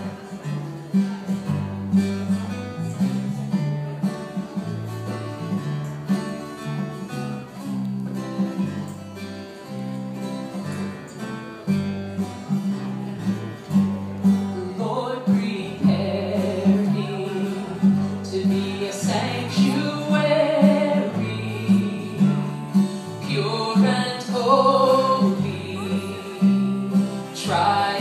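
A live song played on guitar over a steady low bass line, with singing coming in about halfway through.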